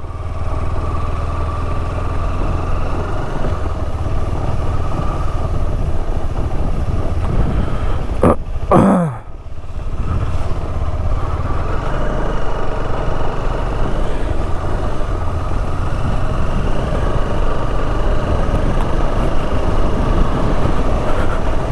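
Motorcycle engine running while under way, with steady wind and road noise. About eight seconds in, a brief sound sweeps down in pitch and the level dips for a moment before the ride noise carries on.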